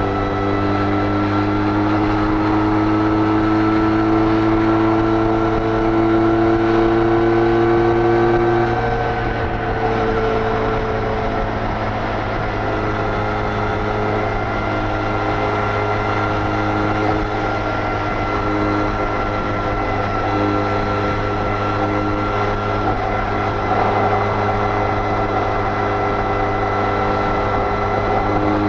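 Benelli Leoncino 500's parallel-twin engine through its stock exhaust, running hard at high speed with wind rush. The engine note climbs slowly, dips about nine or ten seconds in, then holds steady.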